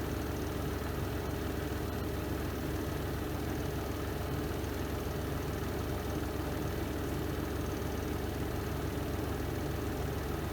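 Spin drum of a Renova semi-automatic twin-tub washing machine running in the spin cycle: a steady motor hum with a fast low vibration.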